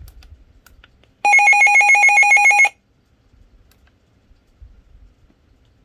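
Weather alert radio sounding its electronic alarm: a loud, rapidly pulsing beep that lasts about a second and a half and starts just over a second in, the sign that the receiver has been tripped by a broadcast alert.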